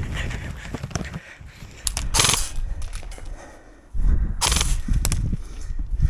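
Rustling, knocking movement noise on a body-worn camera's microphone as an airsoft player moves about, with a few short hissy bursts.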